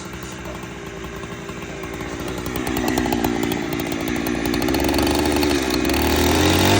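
Chainsaw engine running continuously, getting steadily louder.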